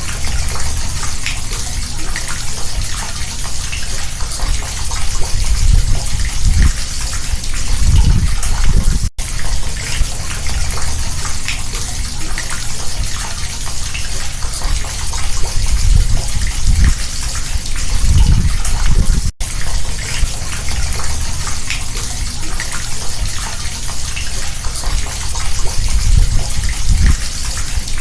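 Rainwater gushing down through a street sewer grate: a steady, loud rush of falling water, with a low rumble that swells every ten seconds or so and two split-second breaks.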